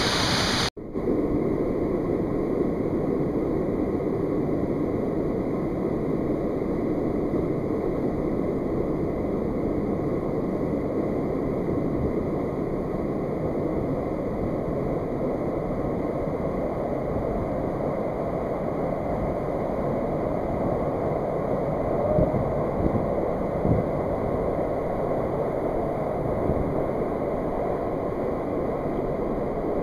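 Mountain stream rushing down a rock cascade in a narrow canyon: a steady, even rush of water. There is a brief break in the sound just under a second in.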